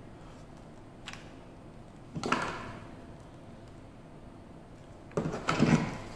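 Hard plastic Makita 18V battery pack being handled over a plastic tool case. There is a light click about a second in, a clatter at about two seconds, and a quick run of louder knocks near the end as the battery is set down.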